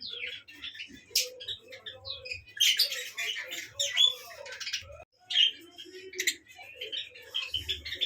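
Many small cage birds chirping at once: a dense, overlapping chatter of short high calls.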